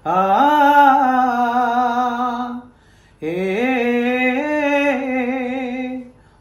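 Unaccompanied male voice singing two long held notes of a Malayalam folk song (nadan pattu), with no words. Each slides up at the start and then holds with a wavering vibrato, with a short breath-pause between them about three seconds in.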